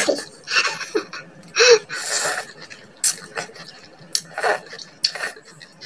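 Close-up mouth sounds of eating: slurping up strands of kangkong in coconut sauce and chewing, with short noisy breaths and lip smacks between mouthfuls.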